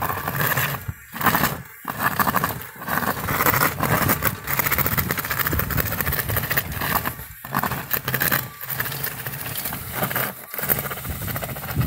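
A homemade remote-controlled snow-plow robot on chained tires drives and pushes snow with its steel blade. Its drive runs with a buzzing sound mixed with scraping and grinding, and briefly stops several times.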